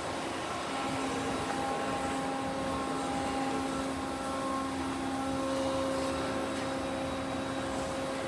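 Mori Seiki SL-35B CNC lathe running, a steady machine hum with several steady whining tones that shift slightly about a second in and again around five seconds in.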